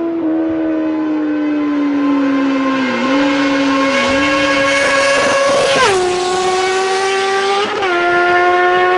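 High-revving motorcycle engine held at a high pitch, with two quick upshifts where the note drops sharply, about six seconds in and again near eight seconds.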